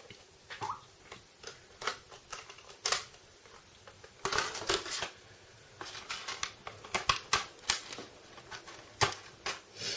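Irregular clicks and rustles of plastic earphone packaging being handled and opened, denser in two spells near the middle.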